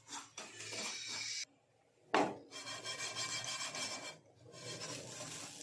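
A spatula scraping dry-roasted semolina around a nonstick frying pan, a gritty rasping sound. It breaks off briefly, a single knock comes about two seconds in, and the scraping goes on as the semolina is tipped out of the pan.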